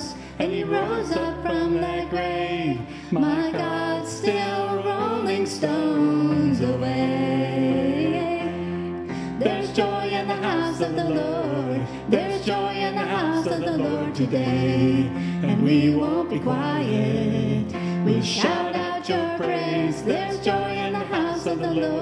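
Contemporary worship song: a woman singing lead with a man's voice, over electronic keyboard accompaniment.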